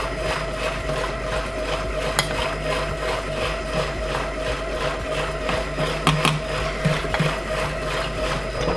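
Krups i Prep & Cook kitchen machine running at speed 8 with its whisk attachment, a steady motor hum, mixing waffle batter. A metal spoon clicks sharply against the lid opening a few times as flour is spooned in.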